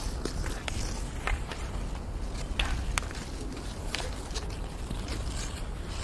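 Kids playing hockey: about ten irregular, sharp clacks of sticks over a steady low rumble of play.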